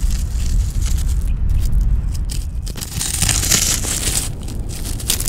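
Wind blowing hard, with a deep steady rumble and a rustling, crackling hiss that grows louder about three seconds in.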